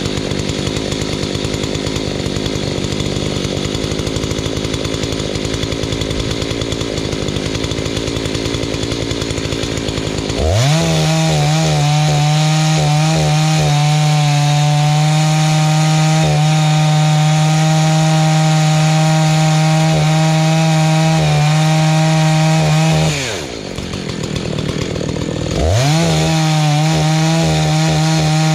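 Husqvarna 288XP two-stroke chainsaw running unevenly at low speed for about ten seconds, then revved up to a high, steady wide-open note that holds for some twelve seconds, drops back briefly, and revs up again near the end. This is the rebuilt saw's first run.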